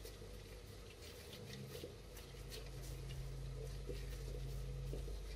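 Gloved hands squeezing and working mashed potato in a glass bowl: faint, irregular soft squelches and little scratchy glove rustles, over a low steady hum.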